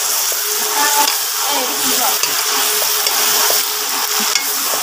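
Chicken and potato pieces sizzling in hot oil in a kadai while a spatula stirs and turns them, a steady frying hiss with small scrapes and clatters of the spatula.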